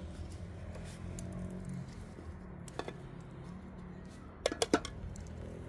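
Dishes and utensils clinking: a single clink about three seconds in, then a quick run of three near the end, over a low steady hum.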